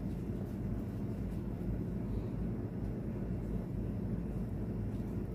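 A steady low background rumble, even throughout, with no distinct knocks or clinks.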